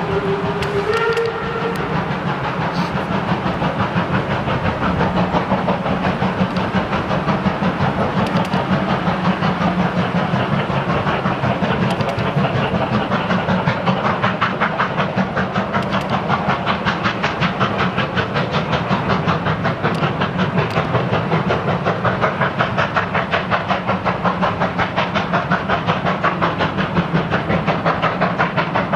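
Steam locomotive 50 3501, a two-cylinder 2-10-0, whistles briefly at the start and then works hard with a steady, rapid exhaust beat. The chuffs become sharper and more even about halfway through.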